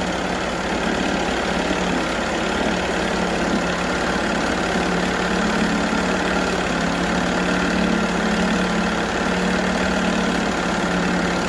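1978 Johnson 6 hp two-stroke outboard motor idling steadily at trolling speed, an even putter with a constant low hum.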